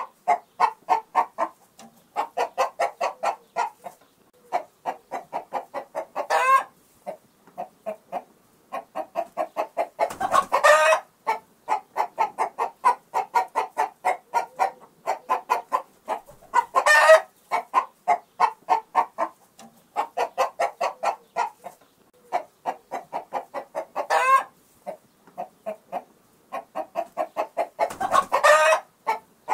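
Chickens clucking in long runs of quick clucks, with a louder squawk every few seconds.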